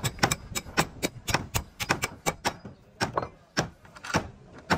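Sharp, irregular taps and knocks, about four a second at first and then thinning out to a few spaced knocks, as of work on wood and bolts.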